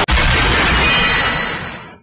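Toy transformation-belt sound effect: a sudden loud crashing hit with a bright ringing tail that fades over about two seconds and then cuts off.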